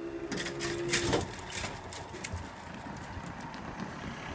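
Level crossing warning alarm sounding a steady tone that cuts off about a second in as the barriers lift after the train has passed, followed by a low rumble.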